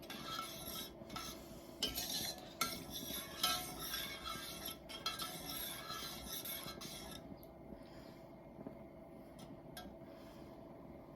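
A spoon stirring and scraping in a pot of thick chicken and vegetable filling, with a few sharp clinks against the pot, to melt a chunk of butter into it. The stirring stops about seven seconds in, leaving a faint steady hum.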